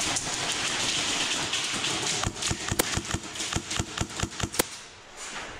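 Airsoft gunfire: a rapid string of about a dozen sharp snapping shots, roughly five a second, starting a couple of seconds in after some shuffling noise of movement.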